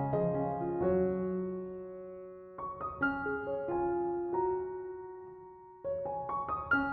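Soft background piano music: gentle phrases of struck notes, each chord ringing and fading before the next phrase begins.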